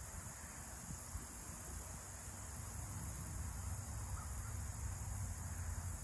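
Backyard outdoor ambience: a steady high hiss over a low rumble, with no distinct call or event standing out.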